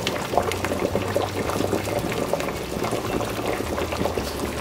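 Pot of water at a rolling boil in a large stainless steel stockpot: dense, continuous bubbling with many small pops.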